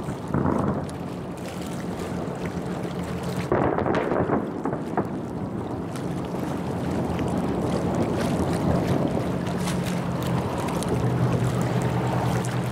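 Distant fireworks: a few sharp cracks and booms about three and a half to five seconds in, over a steady low hum and rumbling noise.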